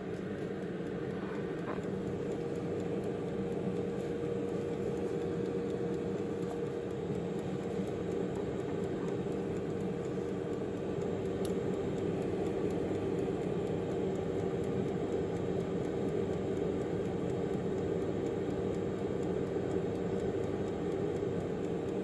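Tower 4.3-litre air fryer running: its fan gives a steady hum with a held tone, swelling a little over the first few seconds.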